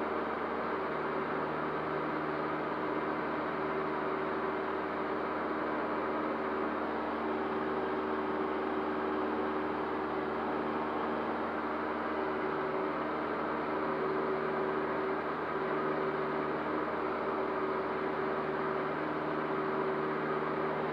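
Cessna 152's four-cylinder Lycoming engine and propeller droning steadily inside the cockpit: a few steady low tones over an even rushing noise, with no change in power.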